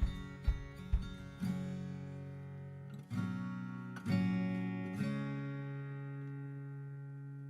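Background acoustic guitar music: strummed chords that ring out and fade, with a soft beat in the first second or so.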